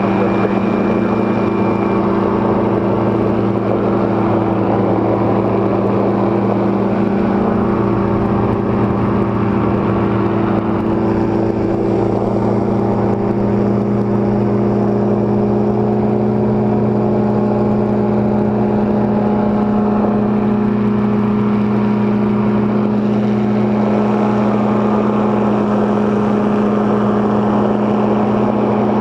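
Powered parachute's engine and propeller running steadily in cruising flight, an even hum at constant pitch.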